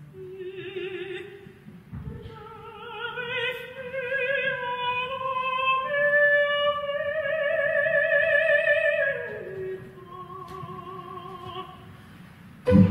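A soprano voice singing alone with wide vibrato, climbing to a long held high note and then falling away to softer phrases. The orchestra comes back in loudly right at the end.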